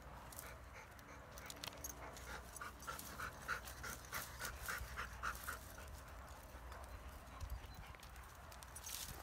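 Faint, quick, even panting of a Kangal dog, about three breaths a second, from about two seconds in until past the middle, among scattered light clicks and scuffs.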